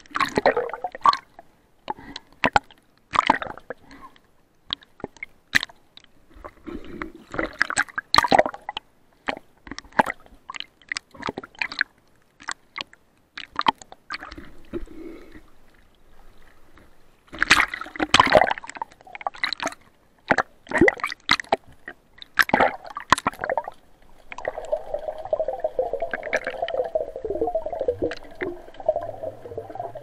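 Seawater splashing and sloshing around an action camera held at the surface as it dips in and out of the water: irregular sharp splashes and gurgles. About four fifths of the way in, with the camera under water, a steady muffled drone takes over.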